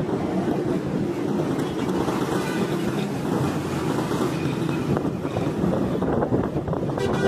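Road traffic and wind rushing over the microphone while riding along a busy city road among motorcycles, a steady mix of engine and road noise. A brief steady tone sounds right at the end.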